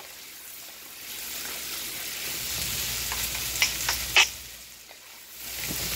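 Diced onion and bell peppers sizzling as they sauté in a frying pan, stirred with two wooden spatulas. A few sharp clicks of the spatulas against the pan come in the middle.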